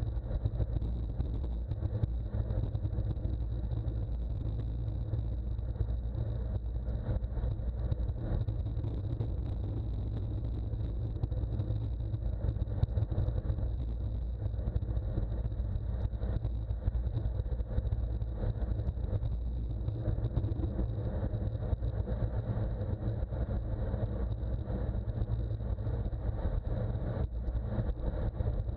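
Steady wind rumble on the microphone of a bicycle-mounted action camera moving at about 29 mph, mixed with road and tyre noise, with a thin steady high whine over it.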